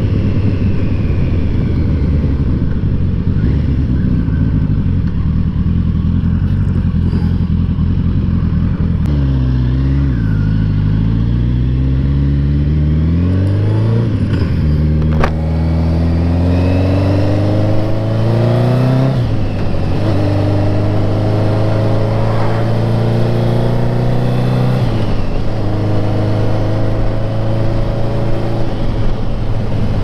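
Kawasaki GTR1000 (Concours) motorcycle's inline-four engine heard from the rider's seat. It runs at a steady cruise, drops off about nine seconds in, then pulls back up through the gears, its pitch rising between two gear changes, before settling into a steady cruise again.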